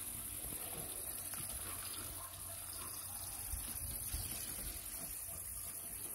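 Water running and trickling steadily, with a low, uneven rumble underneath.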